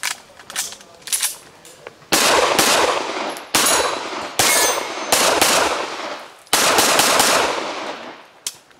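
Handgun fired rapidly: a string of about ten shots in quick pairs and short bursts, starting about two seconds in, each shot followed by an echoing tail.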